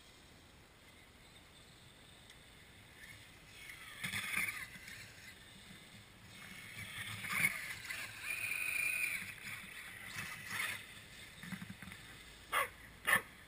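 Radio-controlled crawler (Axial Wraith with a brushless motor) driving through snow in bursts, its motor whining and its tyres churning. Near the end come a few short, sharp yips from a dog.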